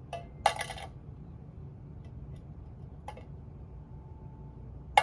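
Small objects clinking and clattering as they are dropped back into a little box: a short rattle about half a second in, a single click about three seconds in, and a sharper clack at the end.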